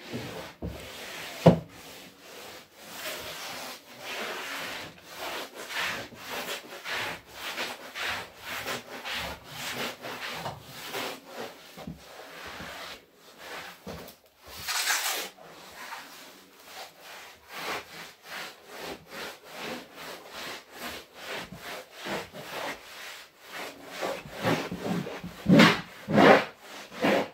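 Repeated scrubbing strokes of a long-handled floor-cleaning tool dragged over a bus floor, about two a second, getting louder near the end, with one brief louder hiss about halfway through.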